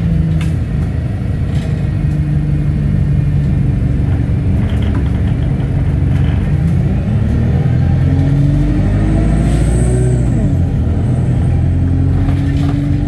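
A bus's engine and drivetrain running under way, heard from inside among the seats, with steady road rumble. Its pitch climbs from about seven seconds in, drops back near ten seconds as the gearbox changes up, then holds steady.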